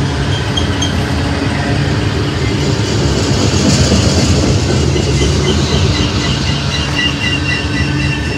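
Freight train of tank cars rolling past close by: a steady loud rumble of steel wheels on rail. From about halfway, a faint high wheel squeal pulses several times a second.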